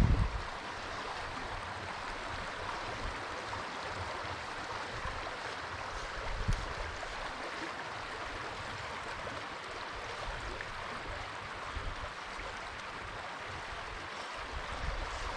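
Trout stream water flowing, a steady, even rush with no changes, broken only by a couple of brief low thumps.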